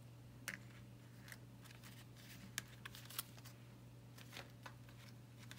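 Faint rustles and light taps of paper cards being handled on a table, a few scattered short clicks, over a steady low hum.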